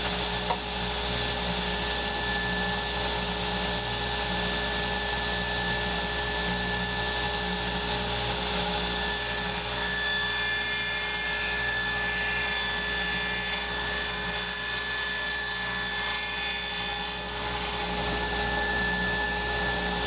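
Table saw running steadily, with a click about half a second in. From about nine seconds in, for about nine seconds, a higher hiss joins as the blade cuts through a board pushed on a crosscut sled.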